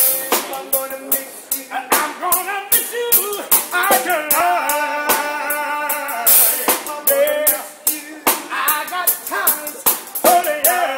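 A man singing with long, wavering held notes, accompanied by a snare drum and cymbal played with sticks: quick snare hits and rimshots throughout, with cymbal crashes at the start and about six seconds in.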